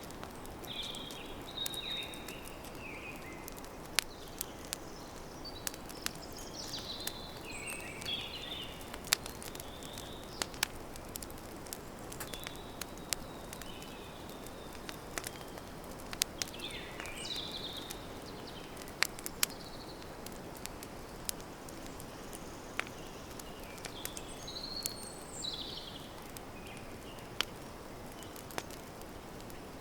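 Campfire crackling, with sharp irregular pops over a steady hiss, while birds chirp in short bursts every several seconds in the forest ambience.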